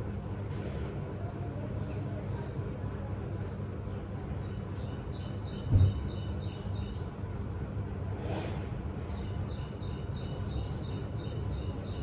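Insects chirping outdoors: two runs of evenly spaced high chirps over a steady high-pitched whine, with one dull thump about halfway through.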